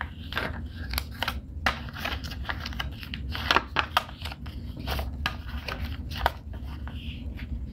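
A sheet of paper being accordion-folded by hand on a wooden tabletop: irregular crisp crackles and taps as it is flipped back and forth and each fold is creased flat.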